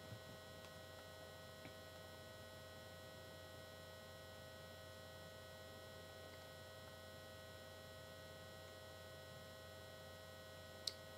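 Near silence: a faint steady electrical hum, with one small click near the end.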